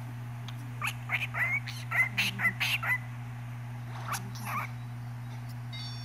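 Cockatiel chattering: a quick run of short chirps and bending whistles for about two seconds, then a few more after a pause.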